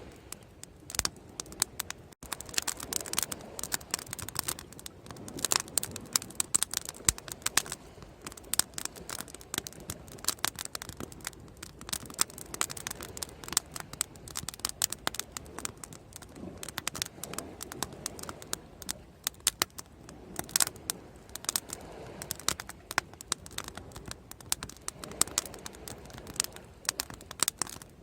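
Wood fire crackling and popping: dense, irregular snaps of burning wood, some sharper pops standing out.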